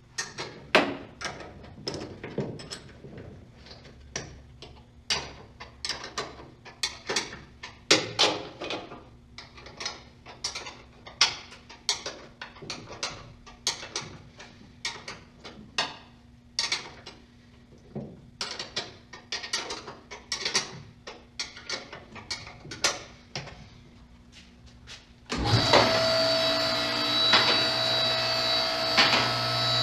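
Metal tools and suspension parts clinking and knocking by hand, in irregular short clicks, during assembly of ST coilovers. About 25 seconds in, a power tool starts and runs steadily with a whine.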